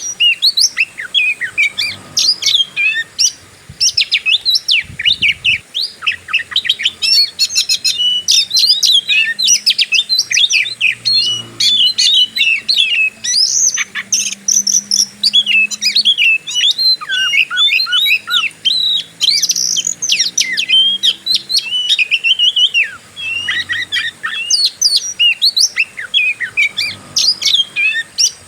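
Oriental magpie-robin singing a fast, unbroken run of varied chirps, whistles and trills in the aggressive 'fighter' style, the kind of song used to provoke a caged bird into singing.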